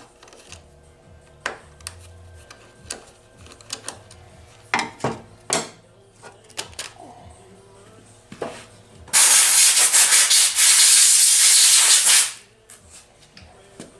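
Small clicks and knocks of hand tools working on a chainsaw's housing, then a loud steady hiss starting about nine seconds in and lasting about three seconds.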